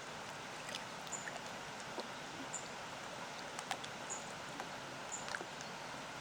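Small lake waves lapping at the shore in many little splashes and clicks, over the steady rush of a distant waterfall. A bird gives short high chirps about once every second or so.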